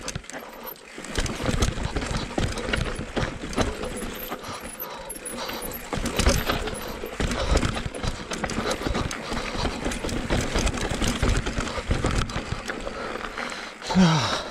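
Cube Stereo 170 full-suspension mountain bike descending a rocky trail at speed: tyres knocking and crunching over rocks and loose dirt, the bike rattling and clattering with every hit, and wind rumbling on the camera's microphone. Near the end a short sound that falls in pitch is the loudest moment.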